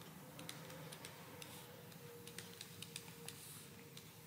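Faint, irregular clicks and taps of a stylus on a pen tablet while handwriting is added, over a weak steady hum.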